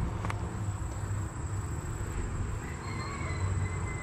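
Steady low hum of a honeybee colony over the open frames of a Langstroth hive. A faint high tone joins in about halfway through.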